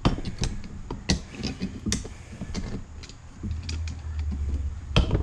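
Irregular sharp clicks and knocks of hard objects being handled, with a low hum coming in about three and a half seconds in and fading near the end.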